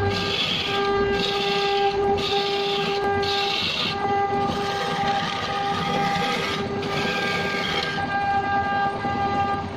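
Wood lathe running while a hand-held turning tool cuts the spinning wooden blank: a steady humming tone under repeated rasping cutting strokes, about one a second.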